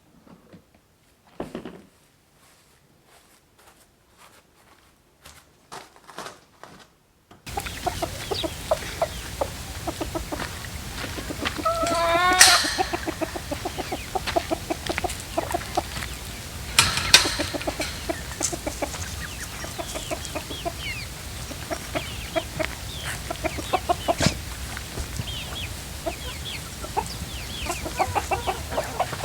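Faint scattered taps and scrapes, then suddenly a flock of chickens clucking continuously, with a louder drawn-out rising call about twelve seconds in and a sharp squawk a few seconds later.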